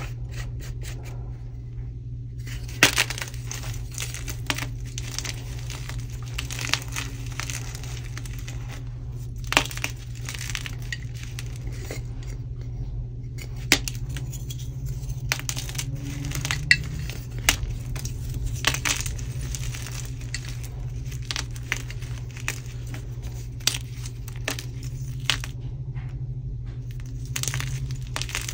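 Thin blocks of plain white gym chalk snapped and crushed in the hands, a string of irregular dry crunches and sharp snaps as the chalk breaks and crumbles into powder. A steady low hum runs underneath.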